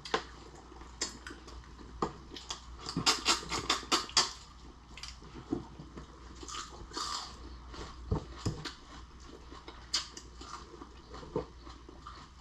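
Close-up chewing and biting of lobster and shrimp: irregular wet smacks, clicks and small crunches, busiest about three to four seconds in.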